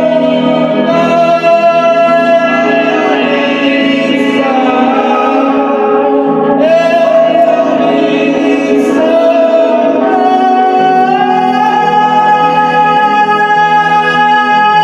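Music: a melody of long held notes, with a few slides in pitch, over a steady low drone.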